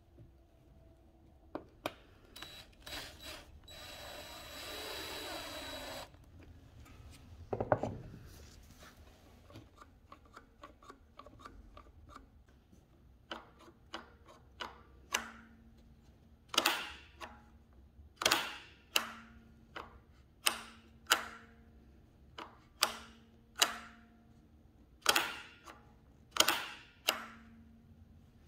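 Homemade plywood slingshot trigger mechanism being cocked and fired over and over: sharp wooden clacks as the spring-loaded latch snaps, roughly one or two a second and often in pairs. Before that come a few small clicks and a short scraping rasp.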